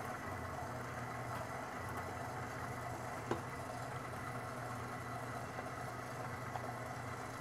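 KitchenAid stand mixer's motor running at a steady hum while its paddle beats the batter, with one light tap a little over three seconds in.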